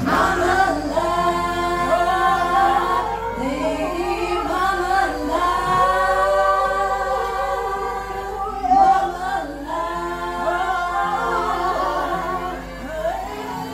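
Three women's voices singing in close harmony, unaccompanied, through handheld microphones and a small speaker. Several sustained, gliding vocal lines overlap.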